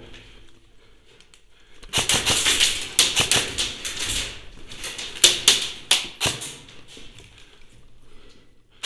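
Airsoft gunfire in a small indoor space: a dense, irregular run of sharp clicks and cracks lasting about two seconds, then a few more single cracks a second or so later.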